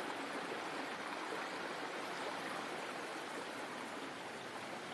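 Steady, even rushing hiss with no distinct sounds in it.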